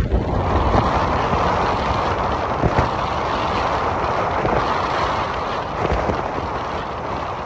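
Wind rushing over the microphone of a moving Royal Enfield motorcycle, with the engine and road noise running steadily underneath and a few brief gusts.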